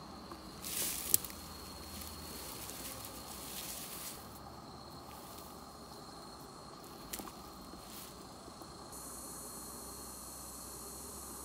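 Quiet outdoor ambience among bushes. There is a brief rustle with a sharp click about a second in, two faint clicks later on, and a steady high hiss that comes in near the end.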